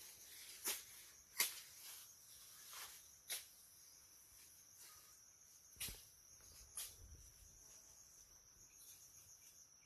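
Insects chirring steadily in a high, even buzz, with about six short sharp crackles scattered through the first seven seconds, like steps or brush being brushed through.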